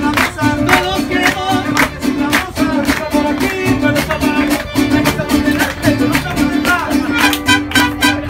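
A mariachi band playing live: guitars strummed in a quick, steady rhythm over a pulsing bass line, with a melody on top.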